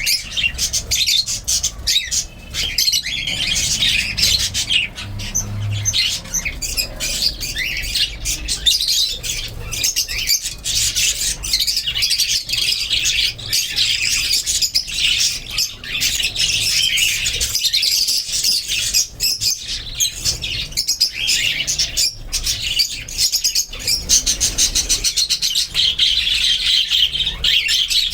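Many budgerigars chattering and chirping at once in a continuous, busy din of short sharp calls.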